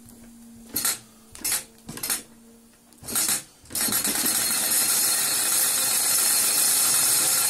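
Wilesco D18 toy stationary steam engine being started from a hand on its controls at 1.5 bar: a few short spurts of steam as it turns over, then about four seconds in it takes off, running fast with a loud, steady hiss of exhaust steam.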